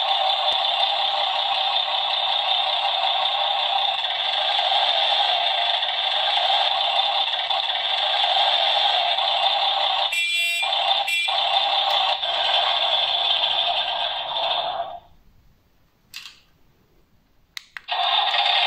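Simulated truck-engine running sound from the Star 266 model's electronic sound module, played through its small speaker as a steady, narrow-band electronic rumble. Two short horn-like tones cut in about ten seconds in. The sound stops for about three seconds near the end, with a couple of clicks, then resumes.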